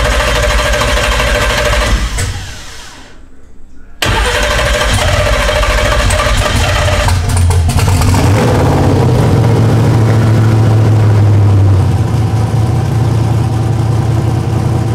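Twin-turbo 427 cubic-inch Dart LSX V8 being started: it runs loudly, fades away about two seconds in, comes back suddenly at about four seconds, then settles into a steady idle whose pitch rises a little around eight seconds and eases near twelve. The engine is idling rich, with its large injectors at their minimum opening time.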